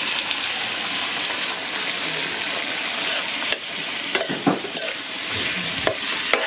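Vegetables sizzling as they sauté in hot oil in a caldero, the oil left over from frying chicken. A cooking utensil stirs them, knocking sharply against the pot a few times in the second half.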